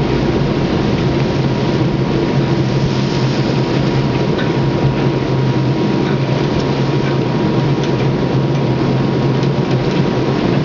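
Pilot boat's engine running steadily under way, a constant low hum, mixed with a steady rush of water and wind.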